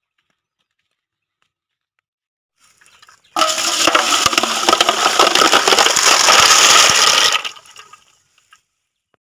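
A thick stream of water gushing into a large metal basin of field snails, splashing and churning. It starts abruptly about three seconds in, runs steadily for about four seconds, then tails off.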